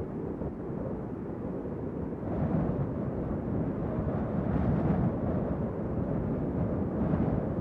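A low, continuous rumbling noise with no clear pitch, growing a little louder about two seconds in.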